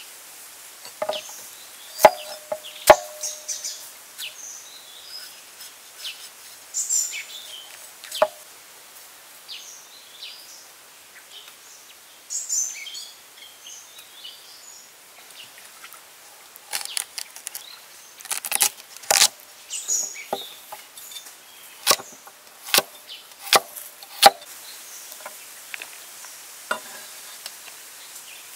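Knocks of a cleaver chopping vegetables, a carrot among them, on a wooden surface: a few scattered strikes at first, then a quick run of cuts about two-thirds through, some strikes leaving a short ring.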